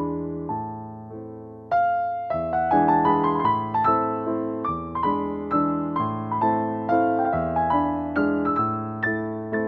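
Background piano music: a gentle melody over chords, getting louder and busier about two seconds in.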